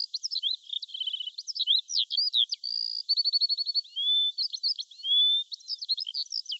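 A songbird singing a fast, varied song of quick slurred chirps, a few held whistles and two rapid trills, the first about a second in and the second near the middle. It is thin and high-pitched, with no low sound under it.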